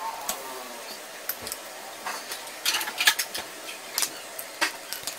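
Irregular light clicks and clinks of cookware being handled on a gas stove, a cluster of them about three seconds in.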